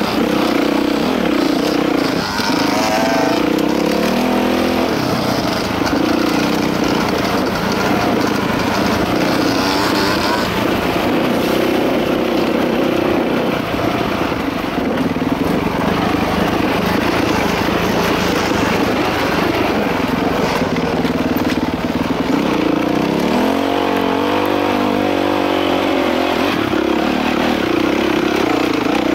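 Dirt bike engine running under load on a trail ride, its revs rising and falling with the throttle, most clearly near the end.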